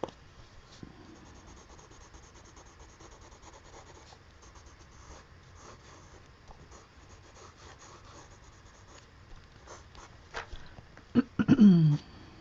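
Colored pencil scratching on paper in light, repeated strokes. Near the end comes a sharp click and then a brief, louder voice sound that falls in pitch.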